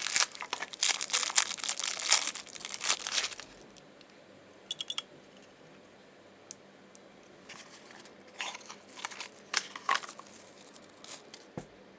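Packaging being handled and torn open: dense crinkling and tearing for about three and a half seconds, then scattered clicks and rustles.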